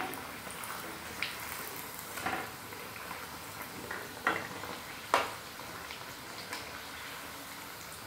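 Potato-and-vermicelli nests deep-frying in hot oil in an iron kadhai, a steady sizzle. A metal slotted spoon clicks against the pan several times as the nests are turned.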